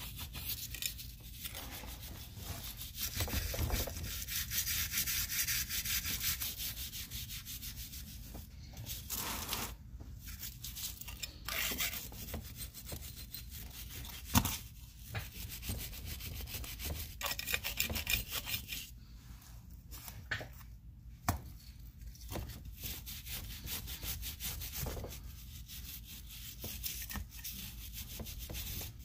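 Rapid back-and-forth scrubbing and rubbing on the metal housing of an old GE bench grinder as its exterior is cleaned, with a few short pauses and a couple of sharp knocks.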